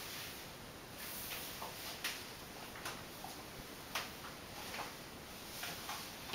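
High-heeled shoes clicking on a tiled floor as the wearer steps and turns, sharp taps about once a second over a steady hiss.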